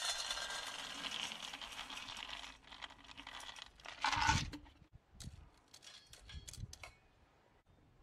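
Wood pellets poured from a plastic bottle into a small perforated metal stove: a steady rattle of pellets hitting metal and each other for about two and a half seconds. A louder rattling knock comes a little past the middle, then a few scattered clicks and rustles.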